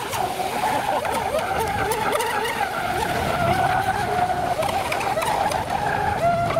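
Two-stroke petrol engine of an RC racing boat running at high revs as the boat speeds across the water, its high whine wavering slightly in pitch.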